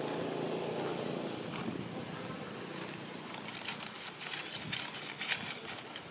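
A motor vehicle's engine drones steadily and fades away after about two seconds. Light crackles and rustles follow toward the end.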